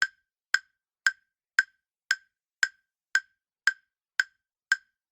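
Countdown timer tick sound effect: a sharp, clock-like tick repeated evenly about twice a second, ten ticks.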